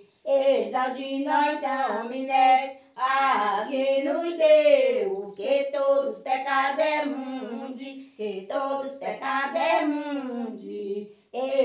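An elderly woman singing a Portuguese devotional hymn solo and unaccompanied, in long phrases separated by brief pauses.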